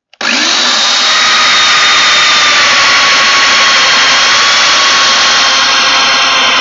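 Festool Domino DF 700 joiner switched on a moment in and running steadily, with its dust extraction pulling air through the hose: a steady whine over a loud rush.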